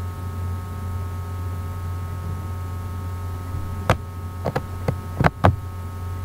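Steady electrical mains hum, with a cluster of about six short, sharp plastic crinkles and snaps over the last two seconds as a bag of shredded cheese is tugged at and struggled open.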